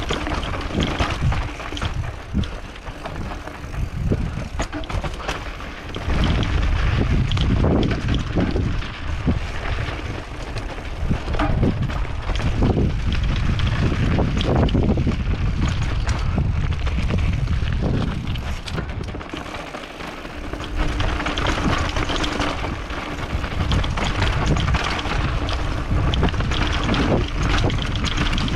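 Mountain bike riding down a dirt trail: wind buffeting the microphone in a heavy rumble, with tyres rolling over dirt and the bike rattling and knocking over bumps.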